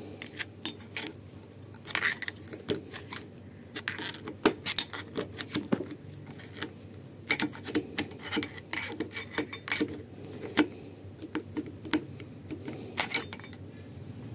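Irregular small metallic clicks and taps of a steel tool rocking the wax actuator side to side inside the bore of a Kugelfischer fuel-injection warm-up regulator, working to break the actuator's seal away from the body.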